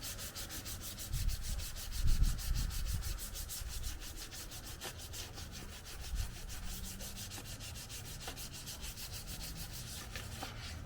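Sandpaper rubbing on a car's body panel, a steady scratching with an even rhythm of about five strokes a second.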